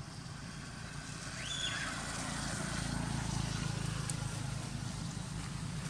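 Low engine rumble of a vehicle on a nearby road, growing louder as it approaches, with one brief high chirp about a second and a half in.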